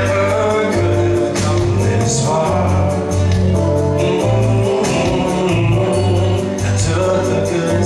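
A man singing into a microphone over a backing track with a steady beat and bass line.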